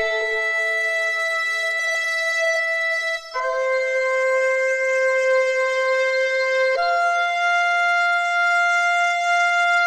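Music: three long, held chords in a woodwind-like tone, each lasting about three seconds, with a short break just over three seconds in.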